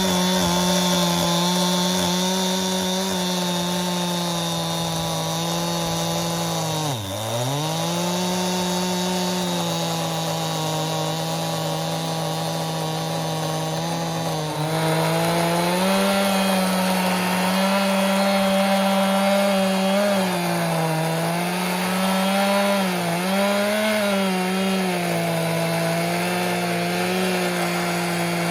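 Stihl MS261 C two-stroke chainsaw on a Granberg chainsaw mill, with ripping chain, running at full throttle as it rips lengthwise through a cherry log. The engine pitch dips sharply once about seven seconds in as the saw bogs under load, then recovers. From about halfway the pitch rises and falls repeatedly as the load on the chain varies.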